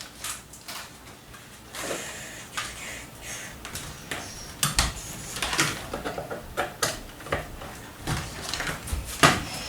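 Handling noises as a charger cable is pulled out and readied: scattered knocks, clicks and rustles, irregular and a second or so apart.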